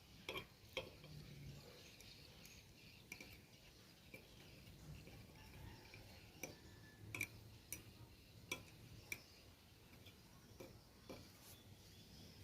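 Near silence with a dozen or so faint, scattered light clicks and taps of kitchen utensils against a metal cake mould.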